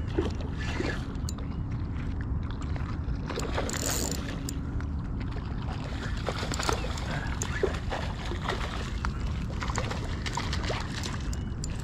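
Steady wind rumble on the microphone, with scattered short clicks and small water splashes as a hooked fish is played at the surface on a spinning rod and reel; a brief hissy splash about four seconds in.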